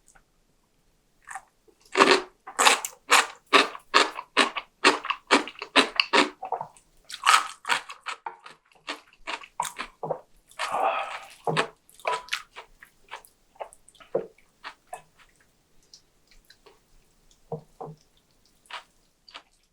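Close-miked chewing of food, with a run of crisp bites about twice a second, then slower, softer chewing. One longer, noisier sound comes a little past the middle.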